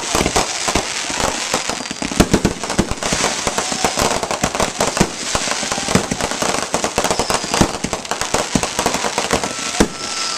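Fireworks going off in rapid, irregular succession: dense crackling pops and bangs over a continuous hiss.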